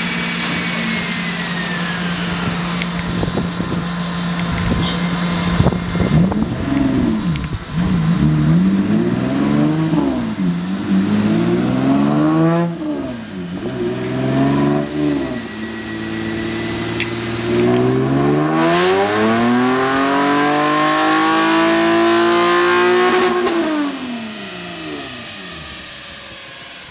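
Hyundai Genesis Coupe race car engine on a chassis dynamometer. It idles steadily, is then revved in several quick blips that rise and fall, and is then held through one long pull that climbs in pitch for about five seconds before dropping back. The sound fades away near the end.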